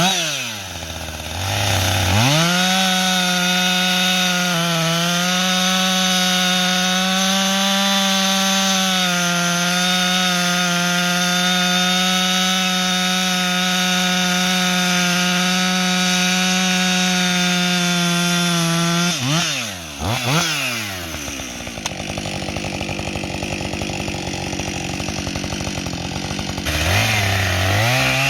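Two-stroke chainsaw revved up about two seconds in and held at a steady full throttle for roughly seventeen seconds while cutting wood. Its pitch then drops off with a couple of quick blips, and it revs up again near the end.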